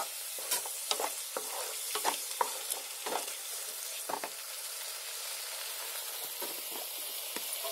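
Mawa cooking down with milk and ghee in a nonstick pan over high heat, sizzling steadily. A wooden spatula scrapes and stirs against the pan about twice a second at first, then only a few times near the end.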